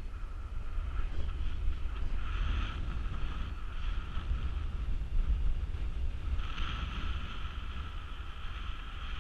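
Wind buffeting the microphone of a camera on a paraglider in flight, a steady low rumble, with a higher whistling hiss that swells about a second in and again past the middle.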